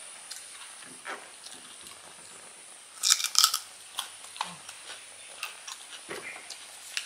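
Crisp, crunchy bites and chewing of raw kedondong (ambarella) fruit, with a burst of loud crunching about three seconds in and scattered smaller crunches around it.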